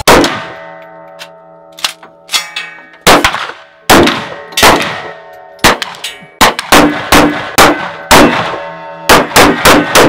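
A string of rifle shots, each with a sharp metallic clang, and a steady metallic ring that hangs on between them, as from steel targets being hit. The shots are irregular and come faster near the end.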